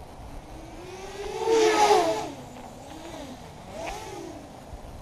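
Small FPV racing quadcopter's motors and propellers whining as it speeds past, the pitch swinging up and then down, loudest about two seconds in. A second, fainter swell of the same whine comes near the end.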